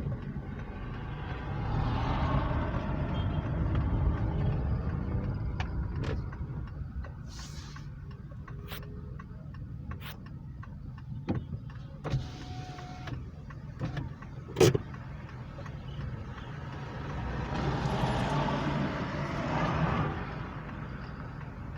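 A car's engine running with a steady low rumble, while vehicles swell past twice, near the start and again near the end. In between come a handful of sharp clicks and knocks, the loudest about two-thirds of the way through.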